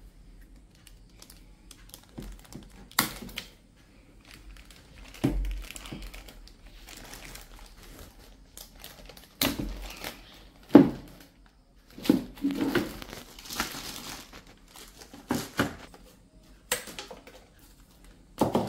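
Clear plastic packaging bags crinkling and rustling as they are handled, with scattered sharp clicks of scissors cutting the plastic cable ties on the packed detector parts, the loudest snip about eleven seconds in.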